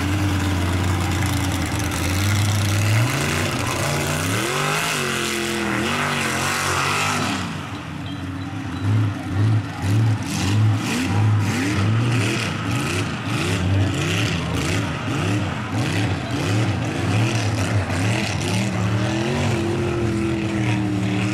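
Lifted Chevy S-10 mud truck's engine revving hard as it churns through a mud pit, the revs rising and falling over and over. From about eight seconds in, the throttle comes in quick blips.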